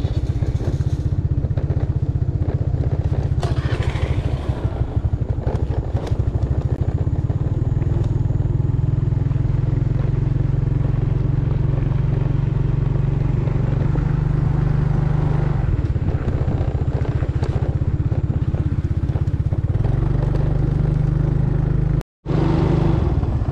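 Small motor scooter engine running steadily while riding a bumpy dirt track, with scattered knocks and rattles from the bodywork over the bumps. The sound cuts out for an instant near the end.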